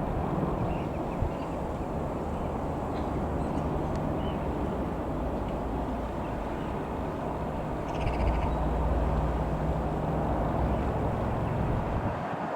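Eurocopter AS355 F2 twin-engine helicopter flying over at a distance: a steady low drone from its rotor and turbines that grows louder about eight seconds in, with birds chirping over it.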